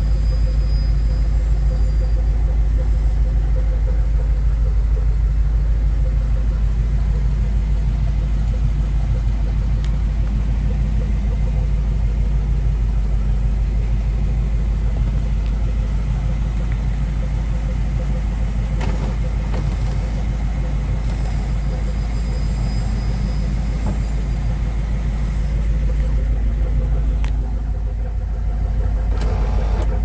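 1959 Ford Thunderbird's V8 engine idling steadily, heard from inside the cabin as a constant low rumble.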